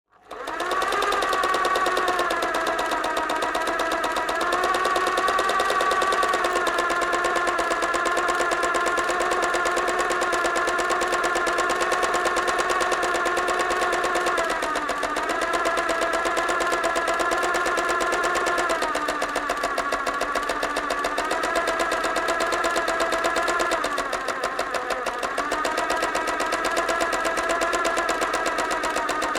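Electric sewing machine starting up and running at a steady speed, a fast even chatter of needle strokes. Its speed sags briefly a few times, around the middle and again near the end.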